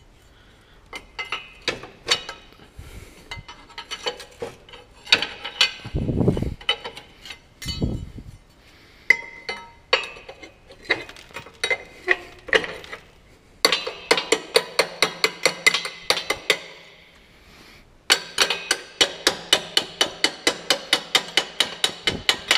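Steel hammer blows driving out the top pin of a mini excavator's blade ram. Scattered metal clinks and taps at first, then two runs of quick, even strikes at about five a second, one about 14 seconds in and another from about 18 seconds.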